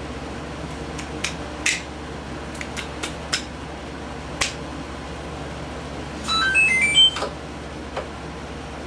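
Scattered light metallic clicks and taps of a nut driver taking off the whip antenna's nut on a vintage Zenith Trans-Oceanic radio. About six seconds in comes the loudest part, a roughly one-second run of short high squeaking tones that jump about in pitch.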